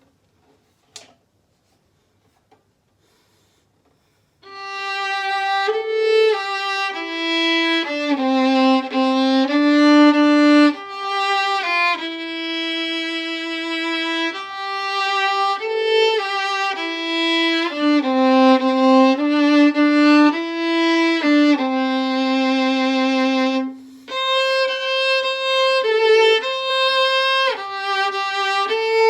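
Solo violin playing the gentle melody of a Japanese winter children's song. The playing starts about four seconds in after a single click, and breaks off briefly once before going on.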